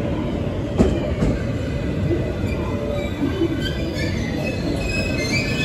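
A JR West 223 series electric train rolling slowly into the platform with a steady rumble from its wheels. There are two sharp clicks about a second in. From about halfway through, several high squeals come in and grow as it brakes to a stop.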